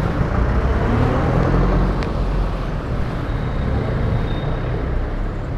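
Motor vehicle running nearby over steady road traffic noise, a continuous rumble with no clear single event.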